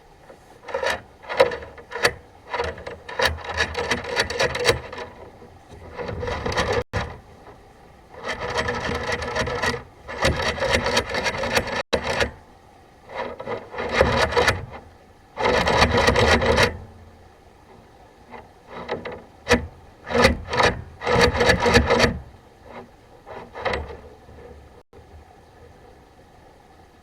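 Repeated bouts of scraping and rubbing, each lasting from about half a second to two seconds, with short pauses between.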